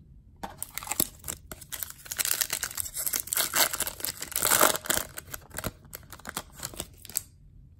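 Foil wrapper of a 2019 Topps Chrome baseball card pack being torn open and crinkled by hand: a dense run of crinkling and tearing that starts about half a second in, is loudest around four and a half seconds, and stops shortly before the end.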